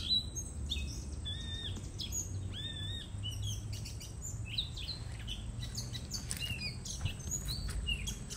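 Several songbirds chirping and calling in quick succession, with two longer whistled notes in the first few seconds, over a low rumble.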